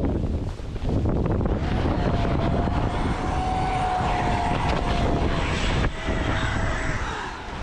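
An airplane's engines whine as it passes close by over a steady noisy rumble. The whine sets in about two seconds in, holds steady, and drops slightly in pitch near the end as the plane goes past.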